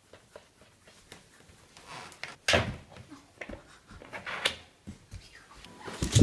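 A puppy's plastic cone collar bumping and scraping against a wire crate and the hardwood floor: a few separate knocks and rubs, the loudest near the end.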